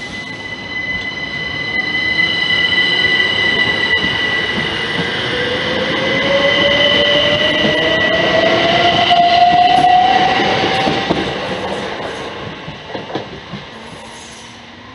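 A Stansted Express electric multiple unit passing close by, with rumbling wheels and a steady high whine. A second whine rises in pitch as it goes, and the noise fades away after about eleven seconds as the train draws off.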